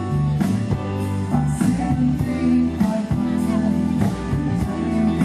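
A live pop-rock band playing: electric bass, guitars and drum kit, with sung vocals.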